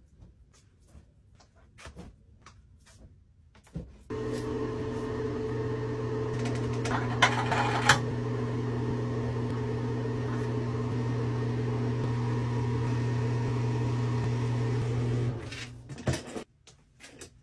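A steady mechanical hum with a low drone starts suddenly about four seconds in and runs for about eleven seconds before cutting off; a few sharp clicks come through it about halfway. Faint scattered clicks and rustles come before it.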